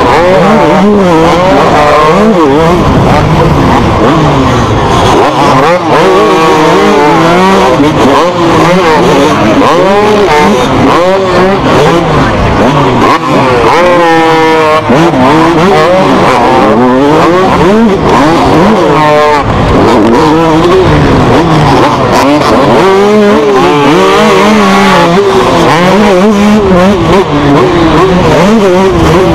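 Two-stroke motocross bike engine, heard from on the bike itself, revving hard and repeatedly rising and falling in pitch as it accelerates, shifts and backs off through the corners of a race.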